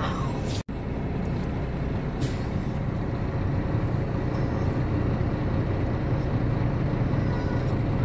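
Diesel semi-truck engine idling steadily, a low rumble heard from inside the cab, with a brief hiss about two seconds in.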